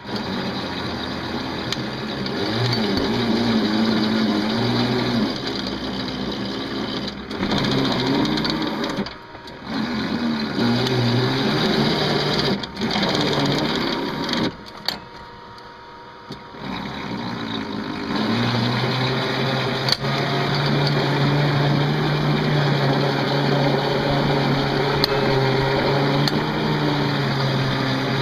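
Small bulldozer's engine running under load while pushing dirt. Its pitch rises and falls with the work and it dips briefly several times in the middle, then it settles into a steady drone for the last third.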